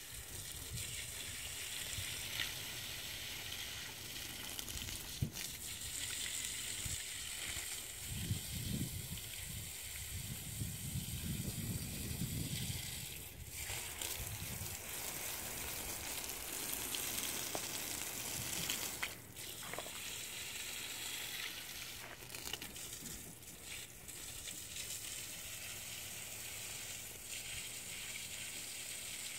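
Steady jet of water from a garden hose hissing and splashing onto bare soil, with a low rumble for a few seconds about a third of the way in.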